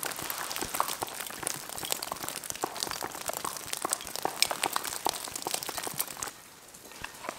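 Gritty crunching and crackling on wet sandy, gravelly ground, many small sharp clicks over a light hiss, as a steel bottle is set down on it. The crackling stops abruptly about six seconds in.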